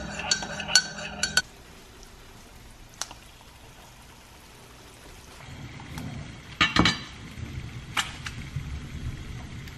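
A metal spoon stirring in a ceramic mug, clinking rapidly against its sides for about a second and a half. Then quieter kitchen noise with a short cluster of loud knocks about two-thirds of the way through and a single clink a second later.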